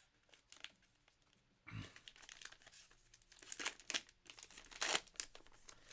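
Plastic packaging around trading cards crinkling and rustling as it is handled and pulled open by hand, with scattered sharp clicks. It starts after a quiet second and a half, and the loudest crackles come in short bursts.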